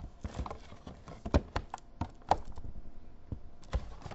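Plastic side panel of a Maxtor OneTouch III Turbo external hard drive enclosure being forced off by hand: a run of irregular sharp clicks and cracks as its tabs pull out of their slots.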